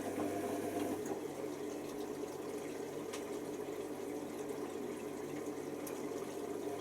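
Hoover Nextra washer dryer running mid-cycle: a steady hum with water moving inside the machine and a few faint clicks.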